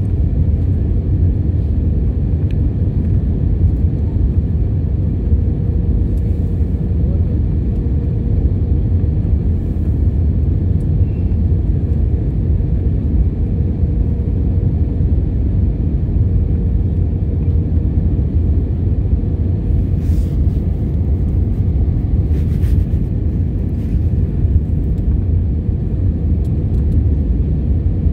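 Steady low rumble of a jet airliner in flight, heard inside the cabin: engine and airflow noise with a faint steady hum on top.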